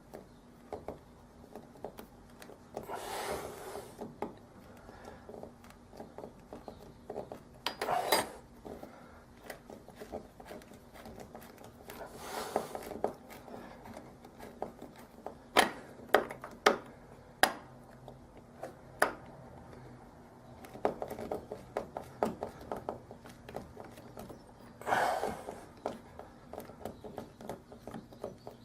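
Small metal door-handle parts being handled and fitted: scattered clinks and sharp clicks, with a few brief rubbing or scraping sounds.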